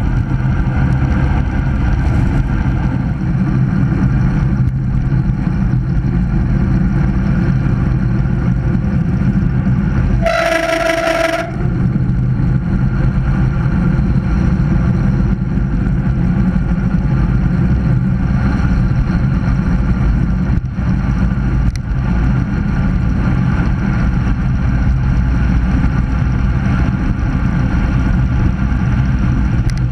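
Steady loud wind rush and road noise from a road bicycle descending at speed, heard on the bike-mounted camera's microphone. About ten seconds in, the rush breaks off for just over a second while a single steady horn-like tone sounds.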